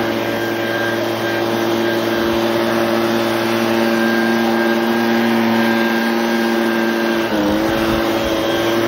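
Leaf blower running steadily, blowing snow out of a railroad switch. Its pitch dips briefly about seven seconds in, then recovers.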